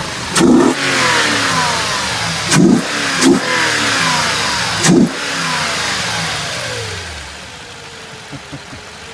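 2010 Toyota Tundra engine breathing through a Volant cold air intake, revved in several quick throttle blips, then its revs falling away and settling back to a steady idle about seven seconds in.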